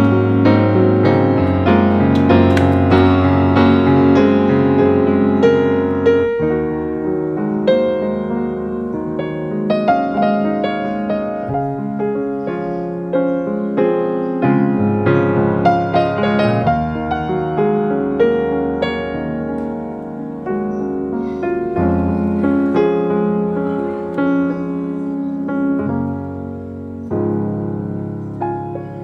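Background piano music with gentle, slowly changing chords and a light melody.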